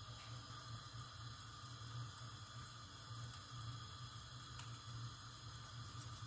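Eggs frying in oil in a non-stick pan: a faint, steady sizzle, with a low steady hum underneath.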